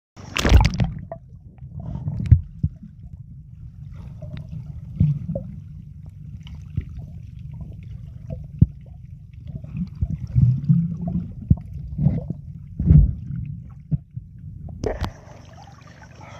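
Underwater sound recorded by a camera while snorkelling: a muffled low rumble with scattered knocks, clicks and bubbling gurgles. About fifteen seconds in it cuts to the surface, with water lapping and a thin steady hiss.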